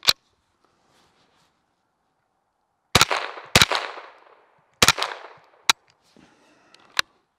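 Three shots from a Thompson Center TCR 22 semi-automatic .22 LR rifle, two in quick succession and a third just over a second later, each with an echo dying away. A sharp click near the start as the action is worked, and two short clicks after the shots.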